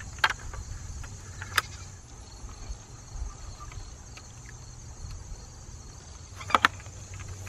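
Sharp clicks as the wire handle of a plastic bucket of potatoes knocks against the hook of a hanging spring scale while the bucket is lifted and weighed: two in the first two seconds and a quick pair near the end. A steady high insect trill and a low rumble run underneath.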